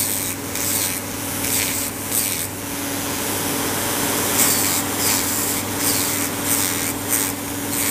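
Electric nail drill with a Kupa bit grinding hardened gel off a fingernail. The motor hums steadily under a scratchy rasp that swells and fades in short back-and-forth strokes.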